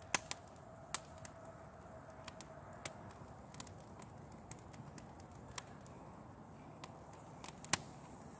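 Small twig bundle fire of damp sticks crackling, with irregular sharp pops and snaps, one louder pop near the end. The wood is wet from lying on the ground, which is why it smokes heavily.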